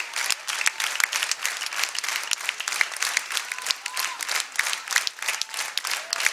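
Audience applauding: a dense, steady patter of many hands clapping, with a voice or two calling out.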